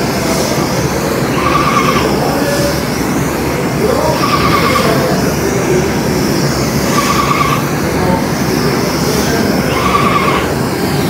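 Paint spray gun hissing as it sprays a coat onto a panelled door, over a loud steady machine noise, with a short whine recurring about every three seconds.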